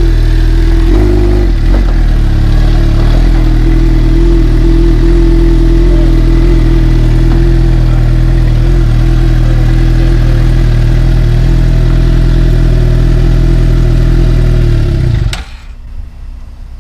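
Suzuki sport bike's engine running at a steady idle close by, then switched off about fifteen seconds in, cutting out suddenly.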